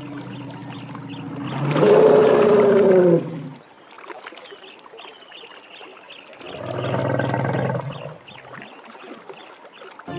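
African elephants calling: a loud call about two seconds in that rises and falls in pitch, and a second, quieter call around seven seconds in.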